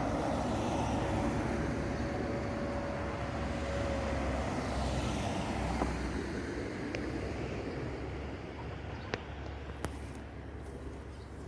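Road traffic passing as a steady rumble that eases off in the second half, with a held tone through the first few seconds. Two sharp clicks sound near the end.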